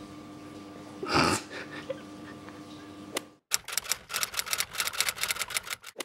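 Typewriter sound effect: a rapid run of key clicks starting about halfway through. Before it, a steady low hum with one brief thump about a second in.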